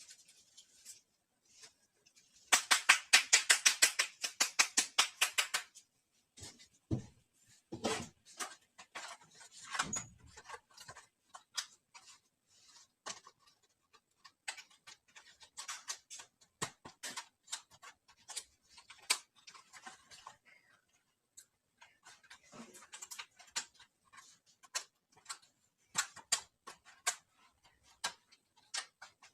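Small plastic dollhouse toy pieces being handled and set down, making scattered light clicks and taps. A few seconds in there is a louder, fast run of even clicks, about ten a second, lasting around three seconds.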